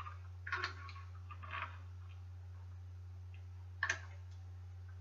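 A few light clicks and taps from a tool on a bicycle stem bolt as it is checked and snugged for tightness. A pair comes about half a second in, one near the middle and a double click near the end, over a steady low hum.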